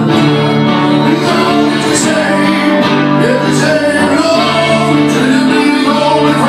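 Two acoustic guitars playing an instrumental piece together live, with sustained ringing notes and an occasional bent, sliding note.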